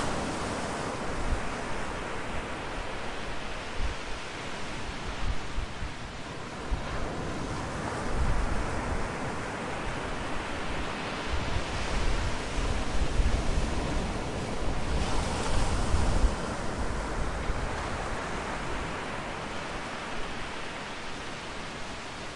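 Wind gusting through forest foliage: a continuous rushing rustle of leaves that swells and eases, strongest in the middle with a low rumble of gusts.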